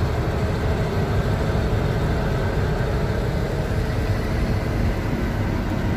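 Mercedes-Benz 1218 truck's diesel engine running on the road, with tyre and road noise, heard from the cab as a steady low drone.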